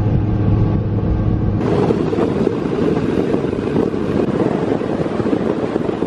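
Ranger bass boat's outboard motor running at speed, with wind and water rushing past. At first there is a steady engine hum; about one and a half seconds in the sound changes to a louder, hissier rush of wind and water.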